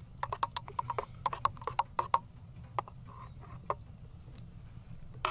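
A quick run of sharp, hollow clicks and knocks from hands handling gear close to the microphone, about five a second for the first two seconds. A few scattered knocks follow, and another pair comes near the end, over a steady low hum.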